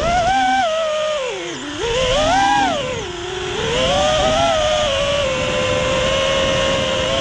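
A 6S FPV racing quadcopter's brushless motors and Ethix Watermelon props whining, heard from the onboard GoPro. The pitch swoops down, up and down again with the throttle in the first three seconds or so, then holds steady.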